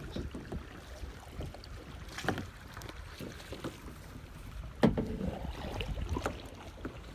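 Kayak being paddled on a river, with wind buffeting the microphone in a steady low rumble. A few light knocks come through, and a sharper knock about five seconds in.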